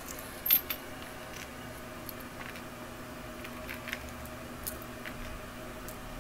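Small metal charm pendants clinking against each other and being set down on cards, with a sharp double clink about half a second in and scattered lighter clicks after it.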